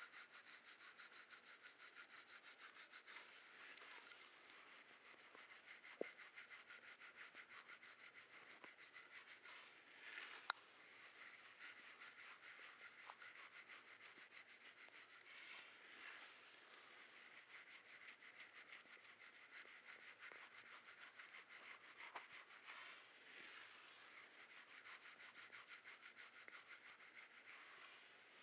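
A brush rubbing in quick, even, repeated strokes, faint and soft, with a sharp tap about ten seconds in.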